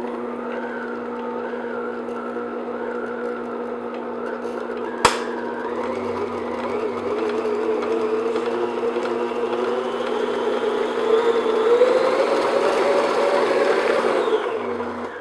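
Electric stand mixer's motor running steadily with a low hum and a wavering whine as its flat beater creams a cream cheese and powdered-sugar frosting, started on slow speed. A sharp click comes about five seconds in, after which the mixer runs louder, loudest near the end, before it winds down just before the end.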